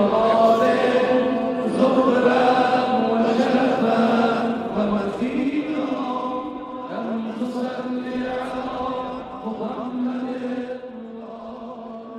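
Voices chanting in unison with long held notes, as in a religious chant, growing quieter over the last few seconds.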